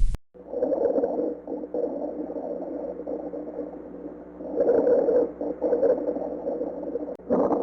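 Recorded lung sounds heard through a stethoscope: breaths swelling and fading about every three to four seconds over a steady low hum.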